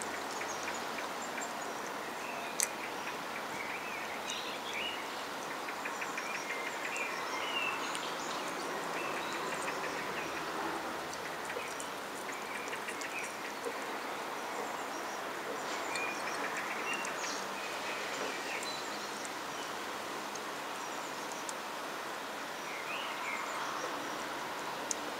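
Steady outdoor background noise with small birds chirping on and off, and a few sharp clicks.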